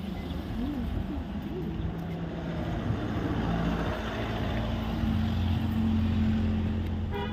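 A road vehicle's engine running as it passes close by, a steady low hum that grows louder toward the middle and eases off near the end.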